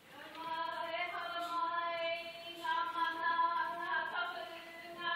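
Karanga, the traditional Māori call of welcome: a single woman's voice calling in long held notes. It breaks briefly about two and a half seconds in and shifts pitch near the end.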